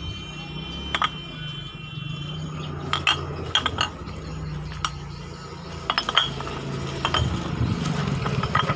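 Empty glass bottles clinking against each other as they are sorted and stacked by hand, with sharp clinks every second or so.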